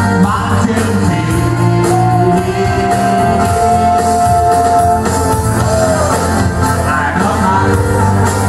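Live band playing dance music on keyboard and guitar with a singer, a long note held for a few seconds in the middle.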